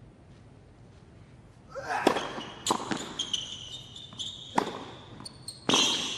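Tennis rally on a hard court. After a quiet pause, a serve and then several sharp racket-on-ball strikes and bounces ring out with a short echo, mixed with high-pitched sneaker squeaks on the court surface.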